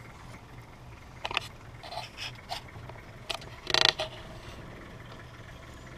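Vehicle engine idling with a steady low hum. Several short sharp scrapes and clicks come between about one and four seconds in, the loudest just before four seconds.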